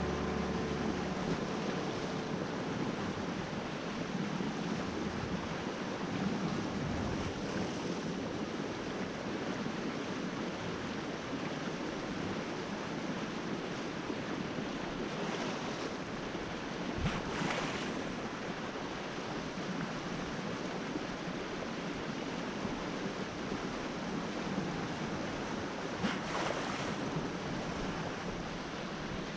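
Steady rush of water and wind, with a couple of brief louder surges along the way.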